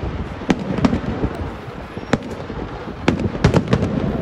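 Kerala temple-festival fireworks (vedikettu) going off in daylight: a continuous rumble broken by sharp bangs at irregular intervals, which bunch into a quick run of bangs a little after three seconds in.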